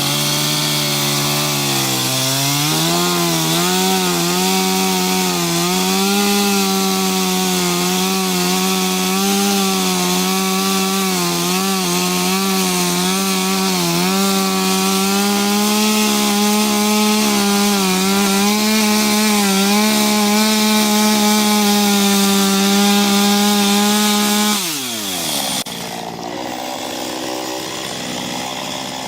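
Small two-stroke chainsaw with a 15-inch bar cutting into a thick ash trunk. The engine revs up about two seconds in and holds high under load, its note wavering as the chain bites, then drops back to idle about twenty-five seconds in.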